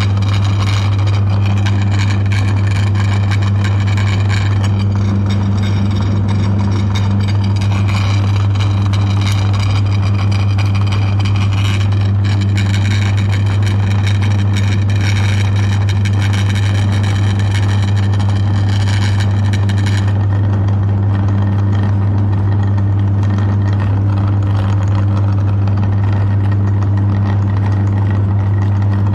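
Meat grinder's electric motor running with a steady, loud low hum. A higher rasping layer over the hum thins out about two-thirds of the way through while the motor keeps running.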